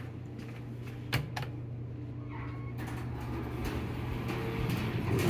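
Elevator hall call button pressed with two sharp clicks about a second in, then the KONE EcoDisc elevator's doors sliding open, over a steady low hum.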